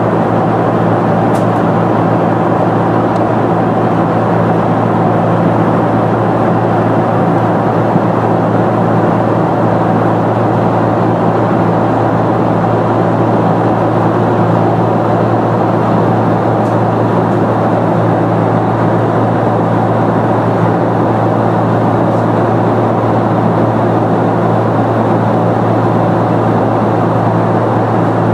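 Steady cabin noise of a Boeing 747-400 airliner in flight: the drone of its four GE CF6-80C2 turbofans and rushing air, with a deep, even hum underneath.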